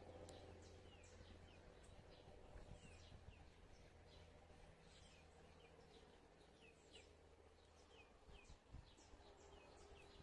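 Faint, busy chirping of small songbirds: many short, falling chirps, several a second, over a low steady hum.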